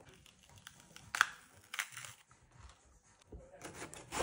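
Kitchen knife slicing through crisp bell peppers and knocking on a bamboo cutting board: a few separate sharp cuts, the loudest about a second in, then a quick run of small cuts near the end.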